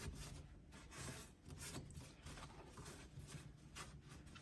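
Faint rubbing and scuffing of a rag wiping cleaner out of a wheel hub's bearing bore, in short irregular strokes.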